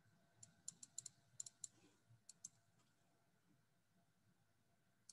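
Faint computer mouse clicks, about ten in quick succession, some in close pairs, over the first two and a half seconds.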